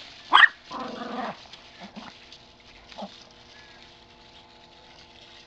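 Small dog barking once, then growling briefly while tugging on a garden hose in play; a couple of soft scuffs follow.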